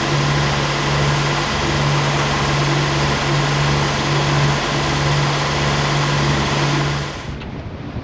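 Steady marine engine drone with a strong low hum under a loud even hiss. It drops away sharply about seven seconds in, leaving quieter wind and water.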